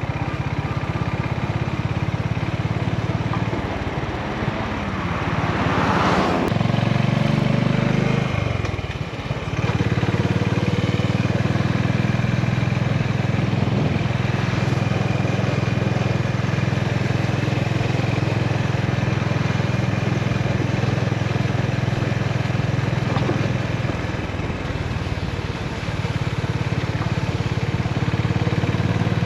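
Honda GB350's single-cylinder engine running under way, its exhaust note picking up about six seconds in, dropping off briefly as the throttle is eased around nine seconds, then holding steady at cruise.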